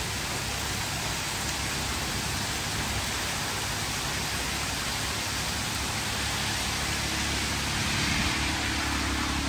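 Heavy rain pouring down steadily in a downpour. Near the end, a low rumble of a car on the wet road grows louder.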